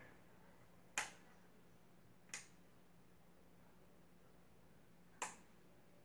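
Near silence: a Ventisol Wind Premium ceiling fan running with only a faint steady hum, broken by three sharp clicks, about a second in, a second and a half later, and near the end.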